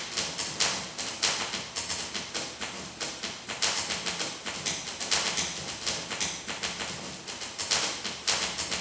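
Paper rustling and crackling as it is handled and moved, in irregular bursts a few times a second.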